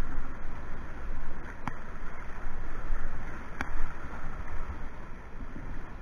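Rushing whitewater heard close to the water surface, with a low rumble. Two sharp clicks come about two seconds apart.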